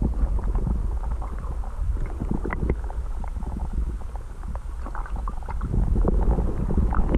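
Muffled water sound heard through a camera held underwater: a low rumble of moving water with many small scattered clicks and pops.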